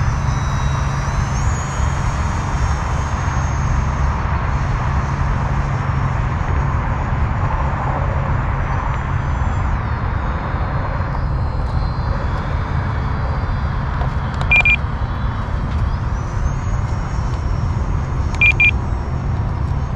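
E-flite F-15 Eagle RC jet's electric ducted fans whining in flight, the high whine sliding up and down in pitch as the jet passes, over a steady low rumble. Two short electronic beeps sound near the end, the second a quick double.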